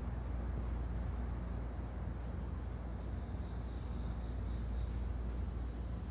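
Crickets chirping in one steady, high continuous trill, with a fainter, lower trill joining in the middle. A low rumble sits underneath.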